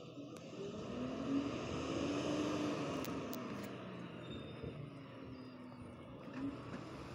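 Garbage truck's diesel engine running, rising in pitch and loudness for a couple of seconds and then settling back.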